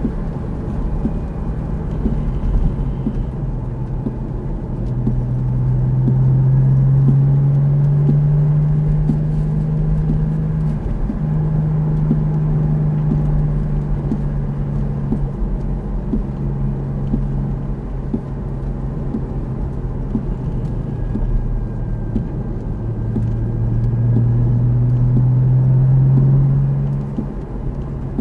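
Porsche sports car's engine heard from inside the cabin, the engine note climbing under acceleration, breaking off briefly about eleven seconds in, then climbing again and dropping away near the end.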